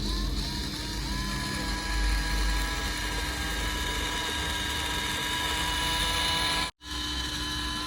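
Small electric motor of a toy RC construction vehicle whining steadily, with a low rumble underneath. The sound cuts out abruptly for a moment about a second before the end, then resumes.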